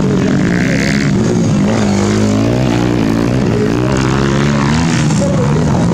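Motocross dirt bike engines revving on the track, their pitch rising and falling with the throttle, more than one engine overlapping.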